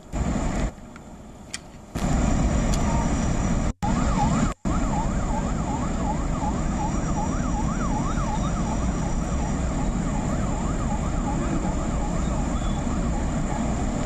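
Steady roar of floodwater pouring down a dam spillway through its open crest gates, with brief cuts in the first few seconds. From about four seconds in, a siren rises and falls quickly over the roar for several seconds.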